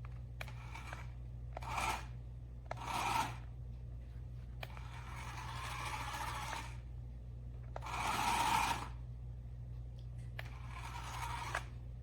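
Toy remote-control monster truck driven in about six short bursts, each a scraping rush of its small motor, gears and tyres, several starting with a sharp click.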